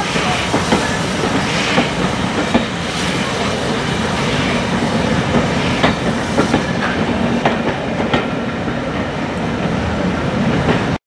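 Steam-hauled train of coaches rolling past close by as it pulls away, the wheels clicking irregularly over the rail joints under a steady rumble of the train. The sound cuts off suddenly near the end.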